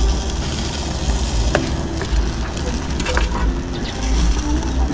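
Sauce thickening with cornstarch, bubbling and sizzling in a pot while it is stirred continuously, with a few sharp clicks over a steady low rumble.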